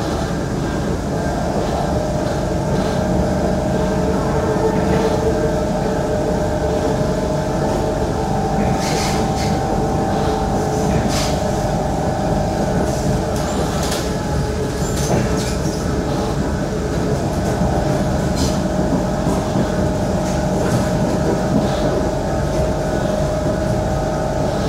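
Kawasaki Heavy Industries C151 metro train heard from inside the carriage while running at speed on the elevated track. There is a steady rumble of wheels on rail, with a steady humming tone over it and a run of light clicks and rattles about halfway through.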